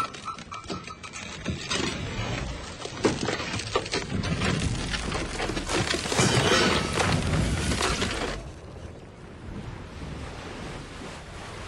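A long run of clattering, crashing impacts like things breaking, loudest about five to eight seconds in, then cutting off abruptly to a quieter steady rushing noise.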